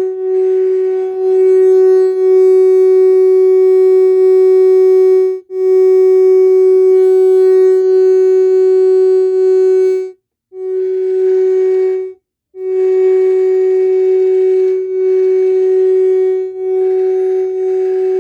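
Faulty RCF powered speaker putting out a loud, steady droning tone, which cuts out briefly three times as the speaker trips off and comes back. The noise is the sign of an internal fault; the owner says the speaker burned out.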